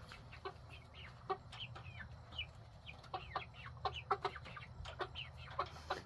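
Young chickens peeping and clucking softly: many short, high chirps, some sliding down in pitch.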